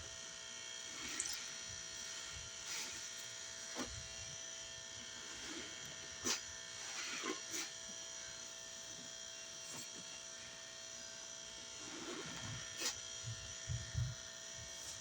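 A sponge soaked with soapy cleaning paste squeezed by hand several times, crackling and squelching, the squeezes clustered about 1, 3, 6 to 7 and 12 to 14 seconds in. Under it runs a steady electrical buzz.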